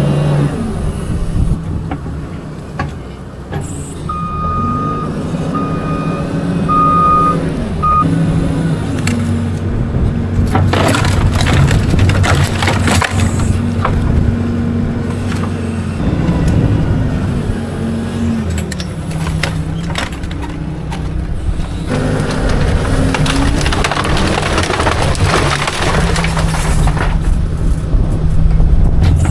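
A farm machine's engine running and changing speed several times, with four short electronic beeps from about four to eight seconds in and scattered knocks and clatter.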